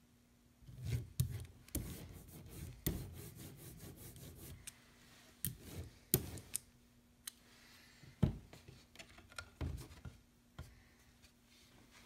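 Hand ink brayer being rolled back and forth over a carved wooden relief carving: irregular rubbing strokes mixed with sharp clicks and knocks, stopping about a second and a half before the end.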